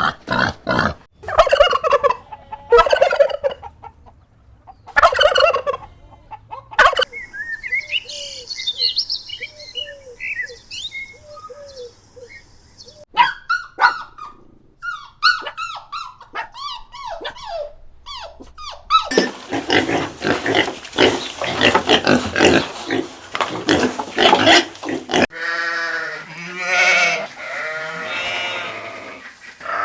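A run of farm-animal calls, each cut straight into the next, mostly poultry such as turkeys gobbling and chickens clucking. The clips change abruptly about 7, 13, 19 and 25 seconds in.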